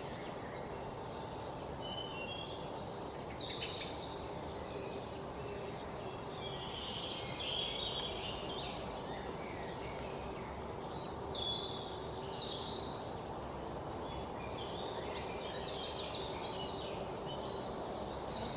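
Several small birds chirping and calling in short, scattered notes, with a couple of quick rattling trills near the end, over a steady background hiss.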